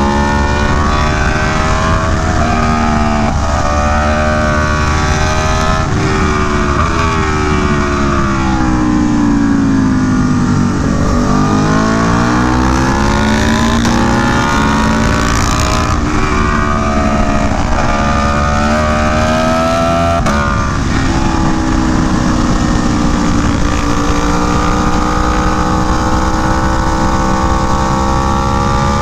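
Aprilia Tuono V4 1100 Factory's V4 engine running through an SC Project CR-T exhaust, its pitch rising and falling as the bike accelerates, shifts and slows for corners. About ten seconds in it drops to a low pitch, then pulls up again, and it holds steadier in the last third.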